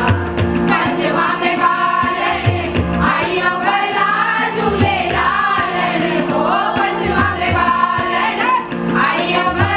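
A group of mostly women's voices singing a song together, with harmonium, keyboard and tabla accompaniment: a steady sustained note under the voices and deep tabla strokes every second or two.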